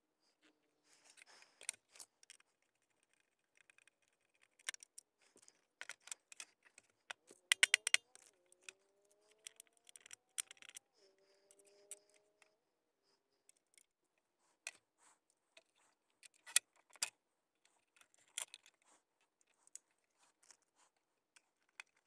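Faint, scattered clicks, taps and rattles of hands handling plastic centre-console parts and metal laptop-mount hardware, in sped-up footage. In the middle comes a denser cluster of clicks, with a few short gliding squeaks.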